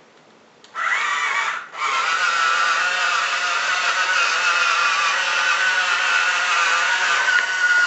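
Small electric drive motor and gearbox of a remote-control wooden bulldozer model whining as it runs. It starts under a second in, cuts out briefly, then runs steadily.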